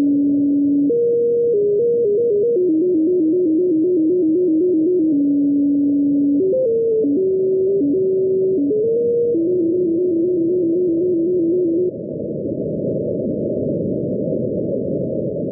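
Shortwave data station heard through a receiver in single sideband: one clean tone stepping between a few fixed pitches, at times flicking back and forth between two of them a few times a second, over narrow-band static hiss. The tones stop about twelve seconds in, leaving only the static.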